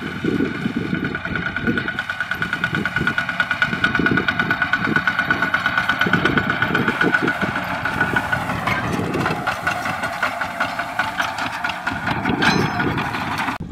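Single-cylinder diesel engine of a Kubota two-wheel walking tractor running while pulling a loaded trailer, with a steady, rapid chugging beat.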